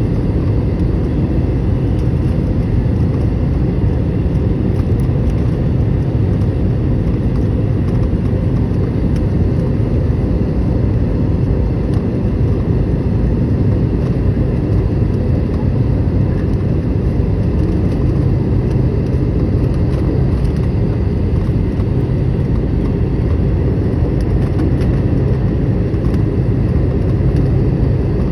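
Airliner cabin noise on the approach to landing: a steady low rumble of jet engines and rushing air, unchanging throughout.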